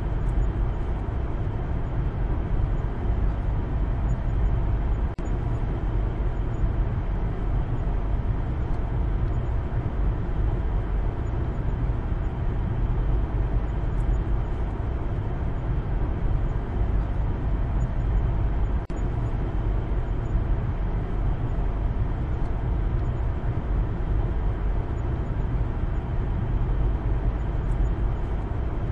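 Steady road and engine noise inside the cabin of a Maruti Suzuki Baleno on the move, a low, even rumble.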